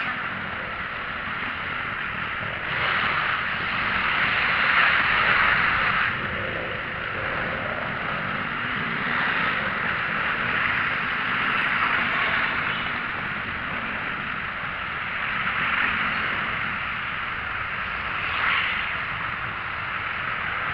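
Steady rush of wind and road noise from a moving vehicle in traffic, swelling louder about three to six seconds in and briefly again near the end.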